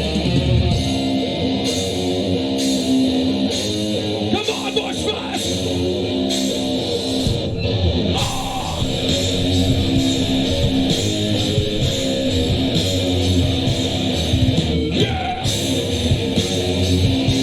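Live rock band playing loud, guitar-driven rock music.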